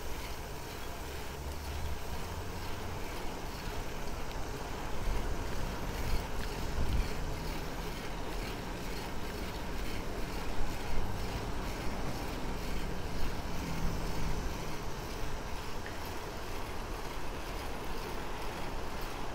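Wind noise on the microphone of a camera carried on a moving bicycle: an uneven low rumble under a steady hiss.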